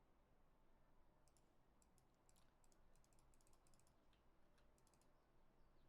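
Near silence broken by faint computer clicks: scattered quick clicks, some in short runs, beginning about a second in.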